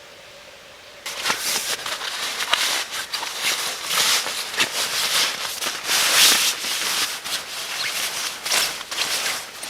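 Close rustling and crackling with many sharp clicks, starting suddenly about a second in, as of something being handled near the microphone.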